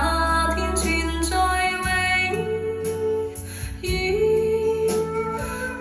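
A Cantonese pop ballad playing through a loudspeaker: a sung melody of long held notes over a deep bass.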